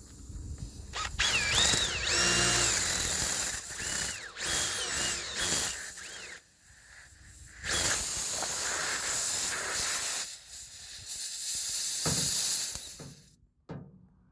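Power drill running in several bursts, its motor pitch rising and falling as the trigger is worked, driving a square-head bit to back a screw out of a tire. A pause of about a second comes near the middle; the drill stops shortly before the end.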